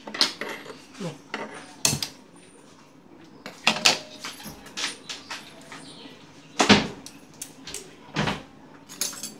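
A string of sharp, irregular clinks and knocks from metal kitchenware being handled at a gas stove.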